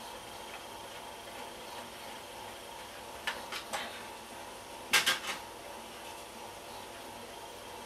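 Hard plastic clicks and knocks from handling an HP dv9000 laptop: a few light clicks about three seconds in, then a louder quick double knock about five seconds in as its battery pack is taken out and set down on the desk, over a steady faint background hum.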